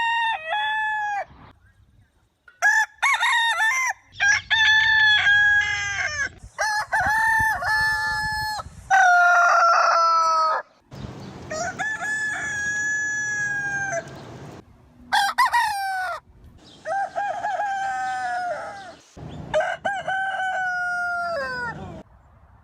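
Roosters crowing, about nine crows one after another, each ending on a falling note. Different birds are heard, and the crows start and stop abruptly as edited-together clips.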